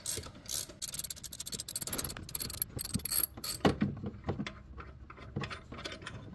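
Ratchet wrench clicking rapidly as it backs out an alternator mounting bolt, then slower, scattered clicks and knocks in the second half.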